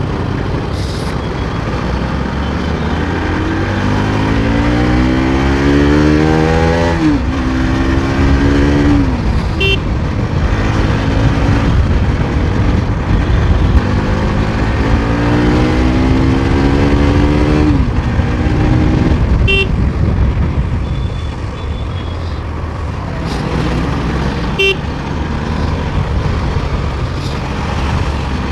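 Bajaj Pulsar NS200 motorcycle's single-cylinder engine pulling up through the gears twice, its pitch rising steadily then dropping at each shift, over steady wind and road rush. A few short high beeps sound in between.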